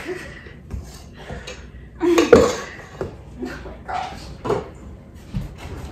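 Stainless steel mixing bowls and utensils clinking and knocking on a kitchen counter while cookie dough is being mixed, in scattered clinks with the loudest knock about two seconds in.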